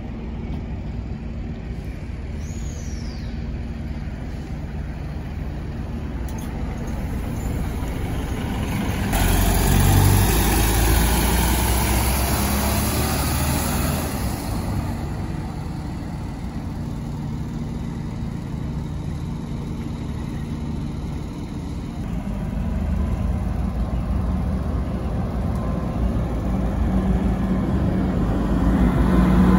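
City buses driving past, engines running with tyre noise; the loudest pass, with a hissing surge, comes about nine seconds in, and another bus grows louder as it pulls by near the end.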